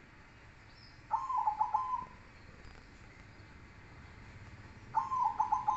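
Zebra dove (perkutut) cooing: two phrases of quick stuttered coo notes, each about a second long, the second starting about four seconds after the first.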